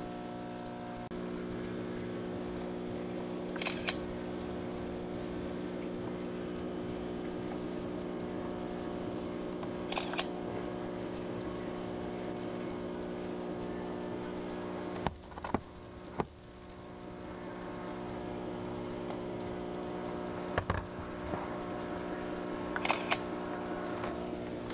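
Steady electrical-sounding hum made of several fixed tones, with a few short sharp clicks or ticks scattered through it, and a brief drop in level about two-thirds of the way in.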